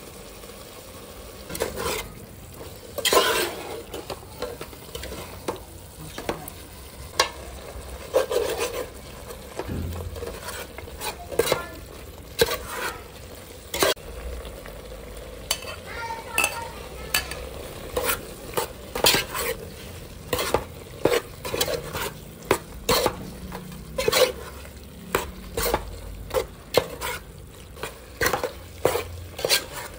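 Meat and spice paste sizzling in a metal pot while a spatula stirs it, scraping and knocking against the pot in irregular clicks that come more often in the second half.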